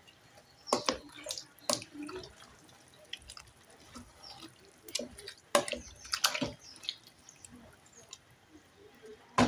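Water dripping and splashing into a sufuria of bean and potato stew as water is added, with a few scattered sharp knocks.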